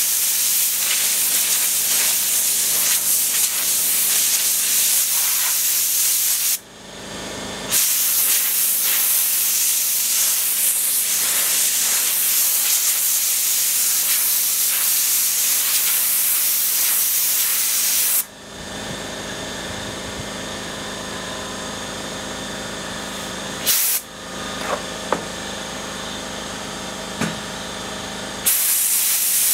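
Compressed-air blow gun on a coiled air hose hissing as it blasts sanding dust off a table top. The hiss drops out briefly about seven seconds in, turns softer from about eighteen seconds in apart from a short full blast near twenty-four seconds, and comes back at full strength near the end.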